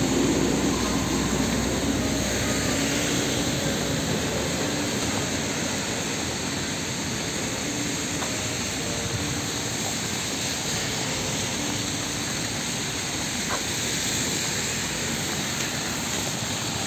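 Steady rain and traffic on a wet city street, an even hiss, with faint notes of music now and then.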